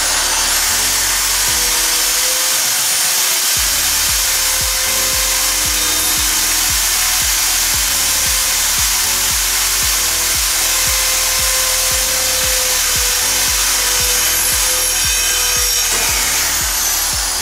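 Ingco 650 W corded impact drill running steadily at speed, a small 5/32-inch bit boring through a steel tube.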